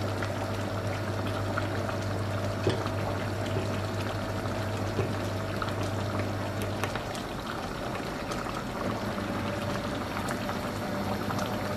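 Ground walnuts poured from a bowl into a saucepan of simmering chicken stew, a soft steady pouring and bubbling with faint small ticks. A steady low hum stops about seven seconds in.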